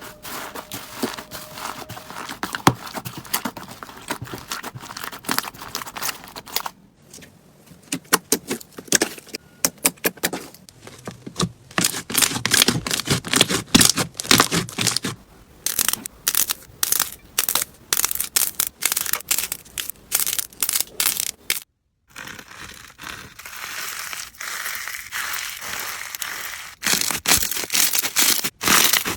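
Slime being squeezed and played with by hands, making dense rapid crackling and popping clicks. The sound changes abruptly about a third of the way in and again after a brief gap near the three-quarter mark, as one clip gives way to the next.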